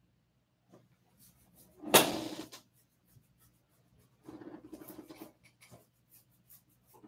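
A man's breathy laughter: one loud burst about two seconds in, then a quieter run of chuckling about a second long, with light clicks and rustles in between.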